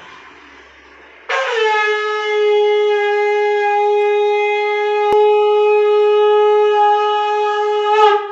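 Conch shell (shankh) blown in one long, steady note of about seven seconds. It starts about a second in with a slight downward slide into pitch. A single click sounds partway through the note.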